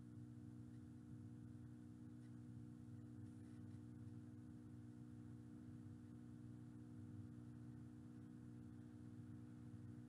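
Near silence: a faint steady hum, unchanging throughout.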